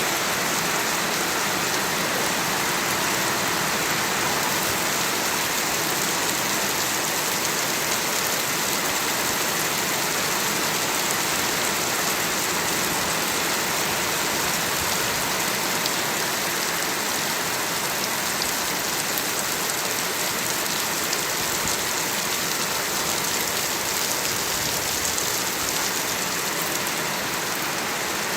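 Steady heavy rain falling, an even hiss that does not let up.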